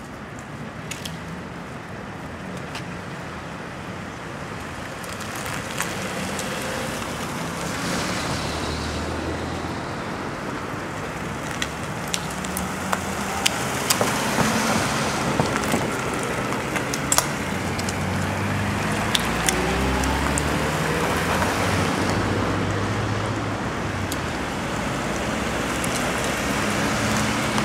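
Road traffic: cars driving past with engines running and tyre noise, slowly growing louder, with a few short sharp clicks in the middle.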